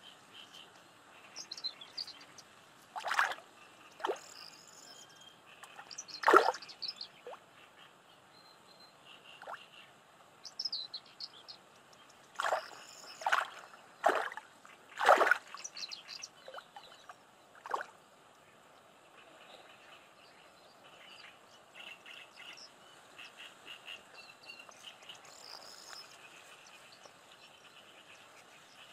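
Birds chirping and frogs calling, with a series of sharp knocks and clicks through the first half, the loudest about six and fifteen seconds in.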